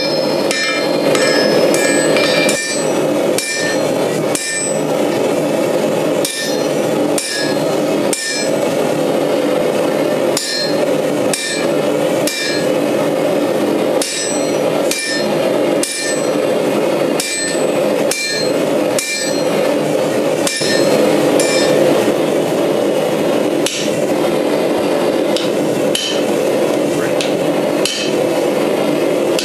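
Hand hammer blows on red-hot axle steel on an anvil, forging a hammer head. The blows come steadily, about three every two seconds, each ringing briefly. Underneath runs a continuous rushing noise from the propane forge.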